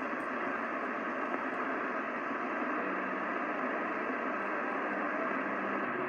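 CB radio receiver hissing with static on an open channel between transmissions, no station coming through. A faint steady low tone joins about halfway through.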